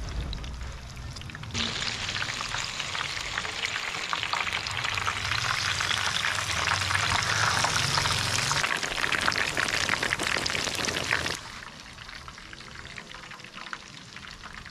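Whole fish deep-frying in a pan of hot oil, the oil sizzling and crackling steadily. The sizzle grows louder about a second and a half in and drops back to a softer sizzle about eleven seconds in.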